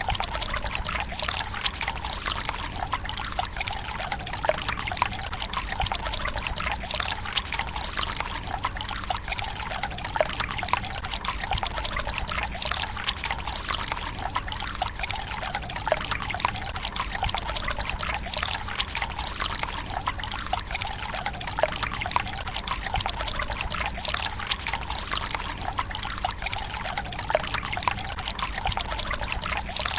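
Water pouring from a bamboo spout into a stone tsukubai basin: a steady trickle and splash, dotted with small droplet plinks, unchanging throughout.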